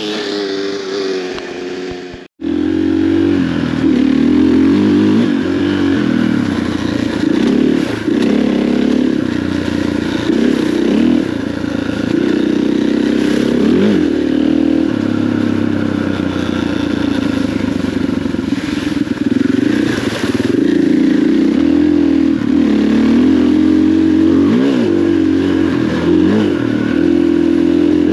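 KTM 500 EXC enduro dirt bike's single-cylinder four-stroke engine running under way on a muddy trail, its pitch rising and falling again and again as the throttle is opened and rolled off. The sound cuts out for an instant about two seconds in, then the engine carries on.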